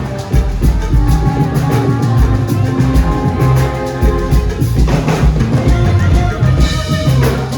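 Live band music: an instrumental stretch of a Ghanaian highlife-style groove, with a drum kit keeping a steady beat over a heavy bass line.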